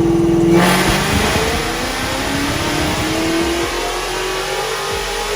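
Car V8 engine at full throttle on a chassis dyno, its pitch climbing steadily for about five seconds as it revs up through the pull.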